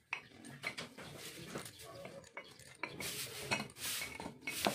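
Starter motor parts clinking and knocking, metal on metal, as the armature shaft and drive pinion are worked into the aluminium drive-end housing: a string of irregular small clicks, with a sharper knock near the end.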